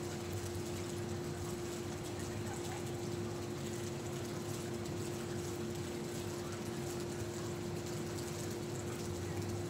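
A steady mechanical hum holding one constant pitch over an even wash of noise, unchanging throughout.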